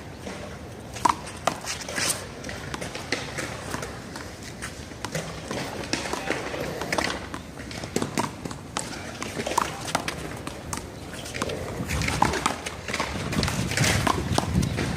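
A one-wall handball rally: a small rubber ball slapped by hand and smacking off the wall in sharp, irregular claps, with background voices.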